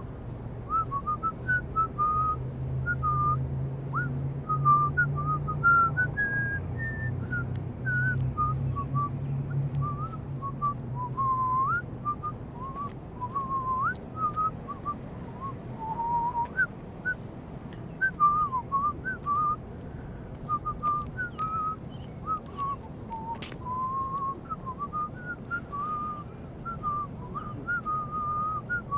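A person whistling a wandering tune, short clear notes one after another, with a low hum underneath for about the first third.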